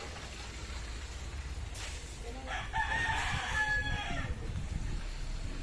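A rooster crowing once: a single drawn-out call of about two seconds in the middle.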